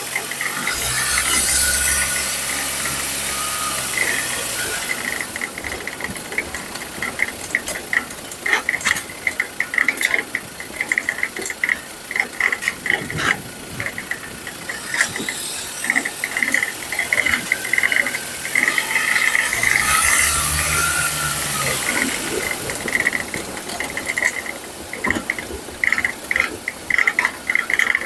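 Ford Ranger front suspension heard up close while driving: irregular knocking and rattling with a high squeak pulsing on and off, over road and engine rumble that swells twice. The knocking is typical of a worn sway-bar (stabilizer) link.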